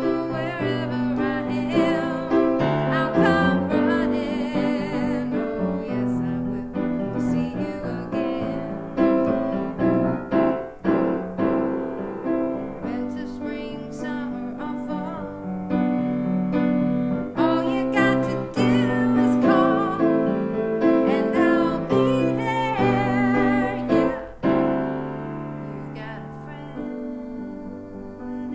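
Solo piano playing a slow hymn arrangement in chords, growing softer after a strong chord near the end.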